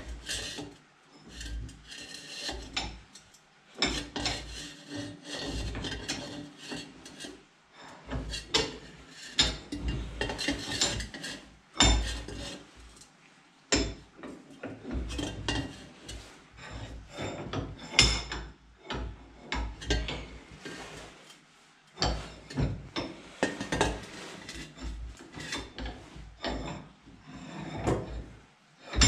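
Irregular scraping and rubbing against a metal pipe, in uneven strokes with a few sharp knocks and short pauses.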